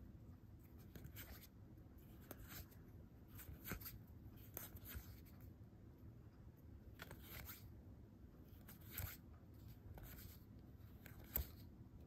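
Faint, scattered rustles and light clicks of Magic: The Gathering cards being slid off one hand-held stack onto another, over a low room hum.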